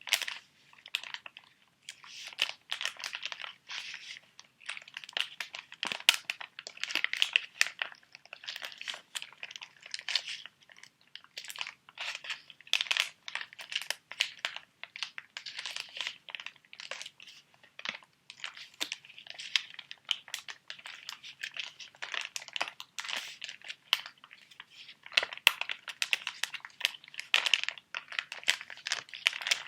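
Plastic sheet-mask packets crinkled and handled close to the microphone: a steady stream of crackles with sharp little clicks and taps, coming in short clusters.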